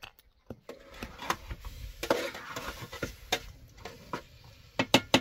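A metal spatula stirring and scraping in a cooking pot set on a wood fire, with scattered clinks and knocks. A few sharp taps come near the end.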